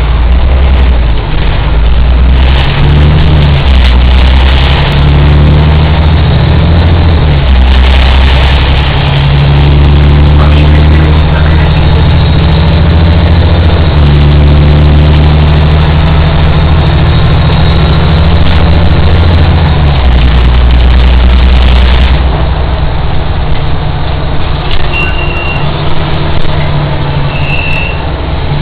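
Volvo 7700A articulated city bus heard from inside while under way: its engine and drivetrain drone loudly, the low pitch changing in steps several times. About 22 seconds in the hiss drops away and the sound gets a little quieter, with a few short high squeals near the end.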